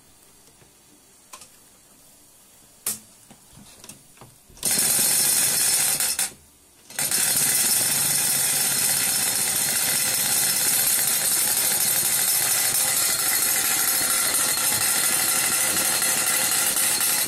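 Wilesco D18 toy live-steam stationary engine running on steam: a loud, steady hiss with a fast mechanical patter, setting in suddenly about four and a half seconds in. It cuts out for a moment about six seconds in, then runs on steadily. Before it starts there are only a few light clicks of hands on the engine's controls.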